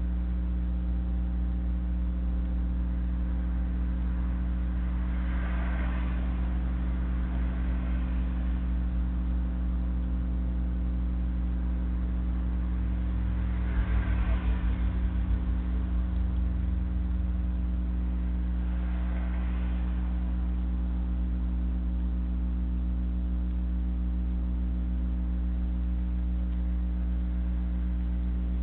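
Steady electrical hum from a security camera's audio, a low drone with several even tones stacked above it. Three times, a faint swell of noise rises and fades over a couple of seconds. The middle swell is the loudest and carries a brief low rumble.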